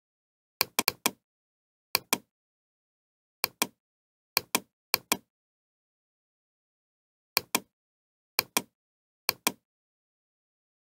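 Computer mouse button clicking, mostly in quick pairs, about eight times, with dead silence between the clicks.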